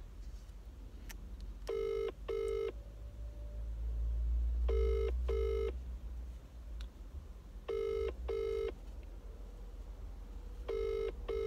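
British double-ring ringback tone from a phone's loudspeaker: an outgoing call ringing, not yet answered, with pairs of short rings four times, about three seconds apart. A low rumble swells and fades around the middle.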